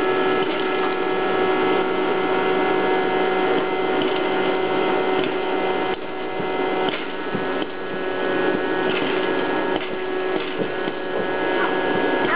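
Hot-air popcorn popper's fan motor running with a steady hum and whine while the kernels heat up before popping, with faint clicks now and then from kernels knocking about in the chamber.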